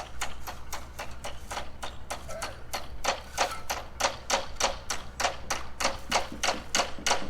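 Hammer driving a concrete nail through fiber cement cladding board into the wall, struck in quick even blows about four times a second.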